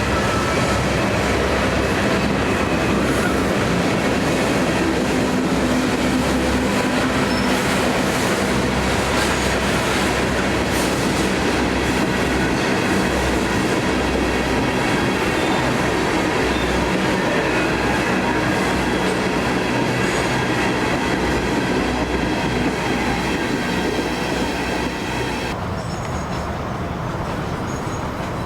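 Train rolling past: a steady, continuous rumble of rail cars on the track with a thin squeal of wheels on rail. The higher sounds drop away suddenly about three seconds before the end.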